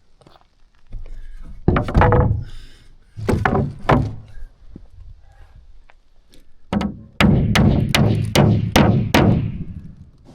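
Hammer driving ring shank nails into a plywood floor: a few separate blows, then from about two-thirds in a steady run of about three blows a second.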